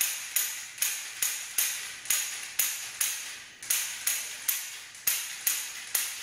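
Beretta PX4 Storm 9mm pistol dry-fired in quick succession with a laser training cartridge: a string of sharp hammer clicks, about two to three a second, each trailing off briefly.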